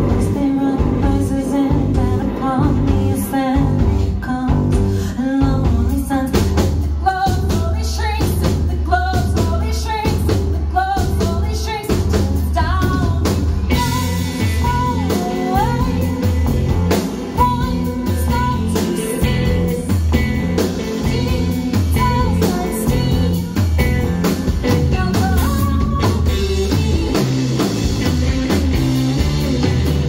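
Live rock band playing: a woman singing over drum kit, electric guitar and keyboards.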